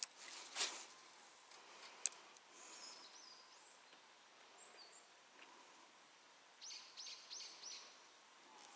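Quiet lakeside ambience with faint, high bird chirps. A short swish comes about half a second in and a single sharp click about two seconds in.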